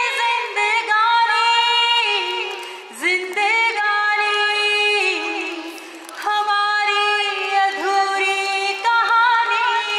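A single high voice singing a slow melody in long held notes, pausing briefly between phrases every few seconds.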